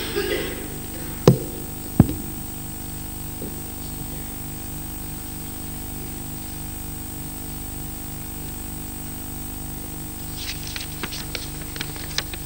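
Steady electrical hum and hiss in a hall, with two sharp knocks about one and two seconds in, and a patter of small clicks and rustles near the end.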